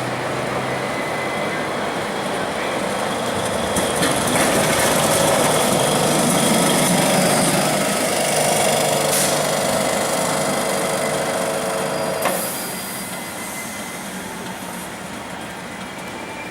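Historic Lisbon electric tram running along the street rails: a rumble of wheels on track with a steady motor whine. It is loudest in the middle and drops away sharply a little past twelve seconds.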